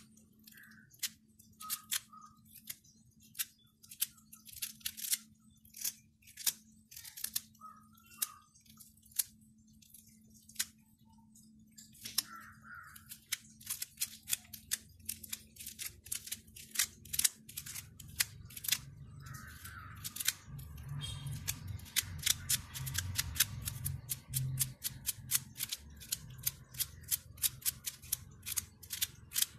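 Plastic comb raked through a paint brush's bristles, stiff with dried paint: a run of sharp clicks and scratches, a few a second at first, coming much faster and denser from about halfway through.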